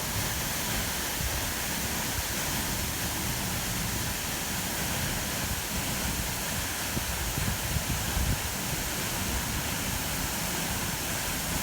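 Waterfall plunging into its pool: a steady rushing noise with a deep, uneven rumble underneath.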